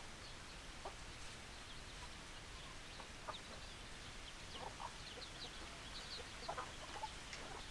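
Hens clucking in short, scattered calls over a steady background hiss, with faint high chirps in between.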